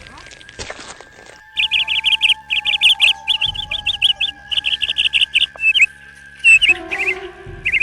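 A bird chirping in quick runs of rapidly repeated high notes, then a few separate calls near the end, over a steady thin high tone.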